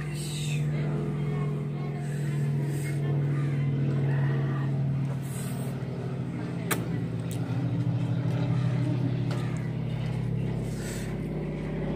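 A steady low droning hum of several held tones, with a sharp click about seven seconds in.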